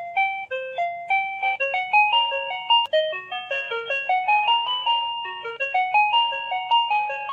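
An electronic children's sound book playing a simple melody through its small speaker after its MIDI tile is pressed: a quick tune of short, clean electronic notes stepping up and down.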